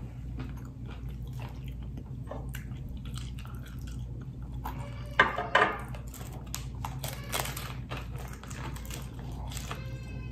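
Close-miked chewing of a crunchy hard-shell taco, full of small crunches and wet mouth clicks, with two loud crunching bites a little past halfway.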